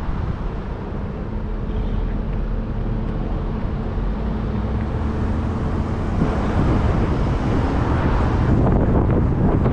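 Wind buffeting the microphone over a low, steady rumble of moving traffic, growing louder about six seconds in.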